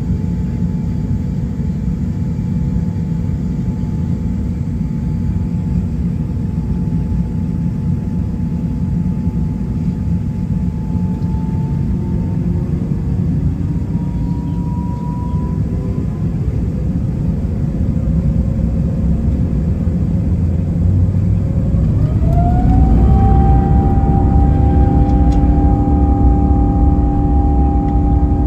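Airbus A350-900's Rolls-Royce Trent XWB turbofans heard from inside the cabin beside the engine: a steady taxiing rumble, then about 22 s in the engines spool up for takeoff, a rising whine that settles into a steady high tone as the noise grows louder.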